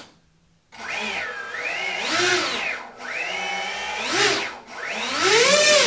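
Twin brushless drone motors spinning the boat's three-blade air propellers under radio-control throttle, a whine that rises and falls in pitch three times as the throttle is pushed and eased. It starts under a second in, after a short silence.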